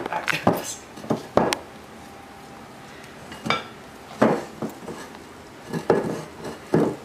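Metal stand-mixer bowl and dough hook clanking as sticky marshmallow fondant is pulled out by hand: irregular knocks and clinks in several clusters.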